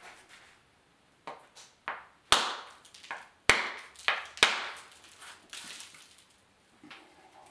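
Stone knapping: a hand-held hammerstone striking the edge of a dark stone core, chipping flakes off. It makes a string of sharp, short clicks, about a dozen over five seconds, with the three loudest in the middle.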